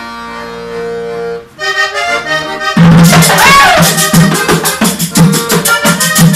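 Accordion opening with sustained chords, then a quick melodic run; about three seconds in, a hand drum and a metal scraper come in with a steady beat as the vallenato-style band starts the tune.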